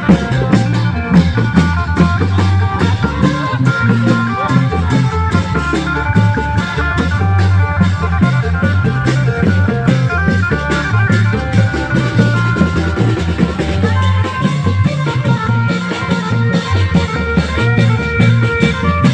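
Thai klong yao long-drum ensemble playing: a steady, repeating drum beat with a melody line held over it.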